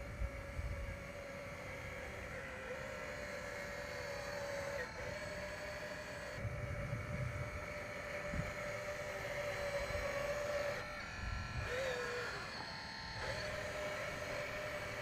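Electric hydraulic pump and motors of a 1:14-scale RC4WD hydraulic RC bulldozer whining steadily, the pitch sagging briefly a few times as the hydraulics take load.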